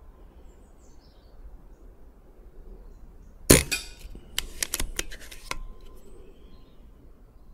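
Brocock BRK Ghost .177 PCP bullpup air rifle, fitted with a shroud, firing one shot about three and a half seconds in. A quick run of small metallic clicks follows as the side lever is worked to chamber the next pellet from the magazine.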